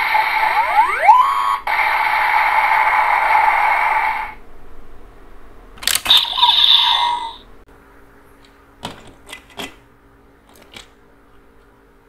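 Electronic sound effects from a DX Build Driver toy belt fitted with a Hazard Trigger. A loud, buzzing effect with a few rising tones plays and cuts off abruptly about four seconds in. About two seconds later comes a click and a short electronic effect as the Full Bottles are pulled from the belt, followed by a few faint clicks.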